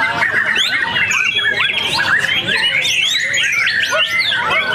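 Caged white-rumped shamas (murai batu) singing in a contest, many birds at once. The sound is a dense tangle of fast, overlapping whistles and chirps.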